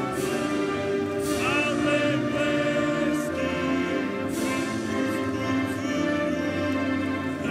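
Orchestral music with a choir singing sustained notes, and a crash sounding every second or two.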